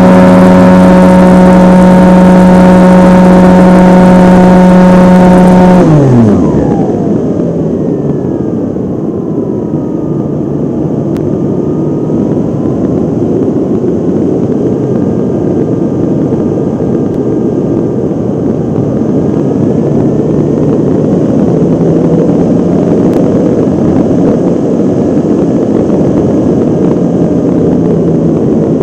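Model airplane's motor and propeller running with a steady high whine at full throttle, then the pitch falls steeply about six seconds in as the throttle is cut. After that, wind rushes over the wing-mounted camera as the plane glides, with a faint wavering tone from the slowed propeller.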